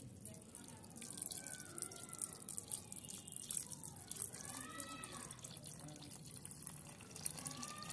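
Tap water running in a steady stream into a pot of rice and red lentils, splashing and bubbling as the grains are rinsed.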